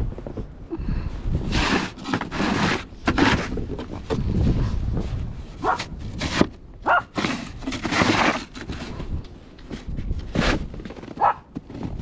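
Snow shovel scraping and pushing snow across wooden deck boards in repeated strokes, each a short rough scrape. A few brief sharper, higher-pitched sounds fall among the strokes.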